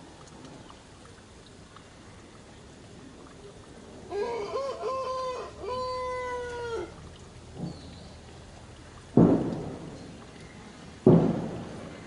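A rooster crowing: a pitched call in a few quick parts ending in a long held note about a second long. Later come two sudden loud thumps, each fading over about a second, the loudest sounds here, over a steady noisy hiss.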